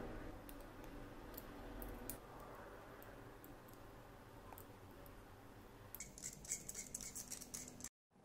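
Faint light clicks and scratches of small plastic model-kit parts being handled and pressed together, with a quicker run of crisp ticks near the end before the sound cuts out briefly.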